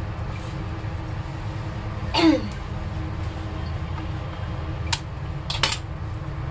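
Kitchen sounds over a steady low hum. About two seconds in there is a short sound that falls in pitch, like a brief vocal noise, and around five seconds in there are a few sharp clicks, as of utensils being handled.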